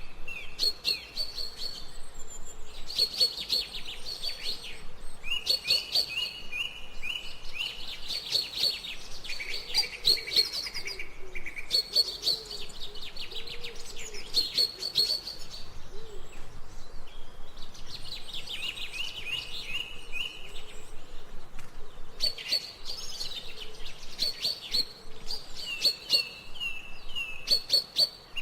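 Songbirds chirping and trilling in short, rapid bouts one to two seconds long, one after another, over a faint steady background hiss.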